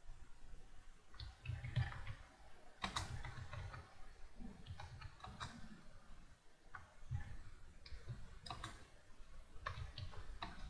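Computer keyboard keys clicking under steady touch-typing, an uneven patter of keystrokes with a short lull about six seconds in.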